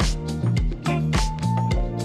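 Background music with a steady beat: drums, bass and guitar.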